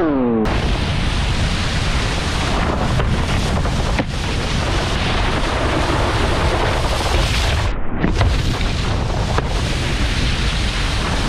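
Strong wind buffeting on an action camera's microphone, mixed with the rushing hiss of a wakeboard carving through water and throwing spray.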